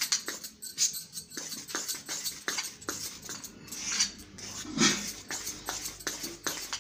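Metal spoon stirring thick pancake batter in a steel bowl, with repeated irregular clinks and scrapes of spoon on metal. There is one louder knock about five seconds in.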